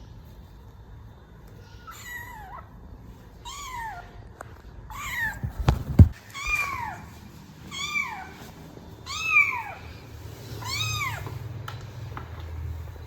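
Kitten meowing repeatedly, about seven short calls that each rise and fall in pitch, one every second or so. A single heavy thump sounds in the middle of the calls.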